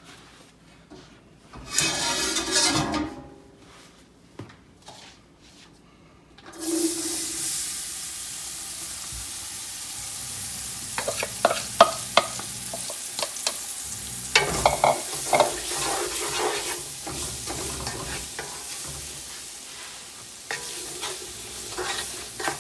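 Chopped vegetables going into a hot dark roux: a sudden sizzle starts about six seconds in and runs on steadily, with a spoon scraping and clicking against the pot as the vegetables are stirred through the roux.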